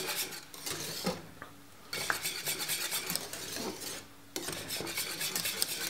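Wire whisk beating cornmeal porridge in a stainless steel pot: rapid scraping and clinking of the wires against the pot, with two short pauses.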